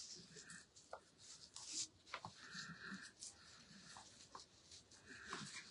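Faint rustling and light ticks of craft materials being handled: a ribbon and paper pieces moved about on the work surface.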